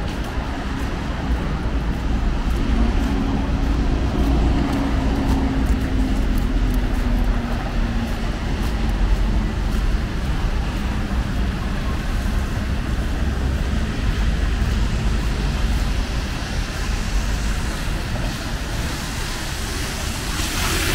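City street traffic: a steady rush of car engines and tyres. One vehicle's engine note falls slowly a few seconds in, and a hiss swells near the end as another passes.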